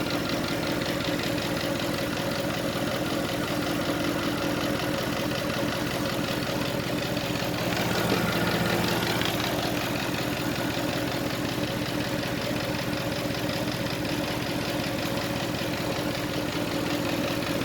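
Mercedes-AMG car engine idling steadily with the air conditioning running at full blast, rising slightly for a moment about eight seconds in.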